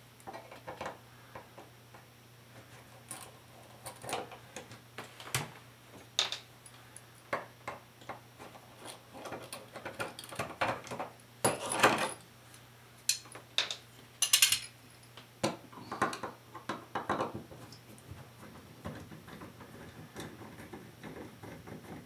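Irregular clicks, scrapes and small metallic clinks of a screwdriver working on an electrical outlet, as the cover plate and receptacle screws are undone and the outlet is taken apart.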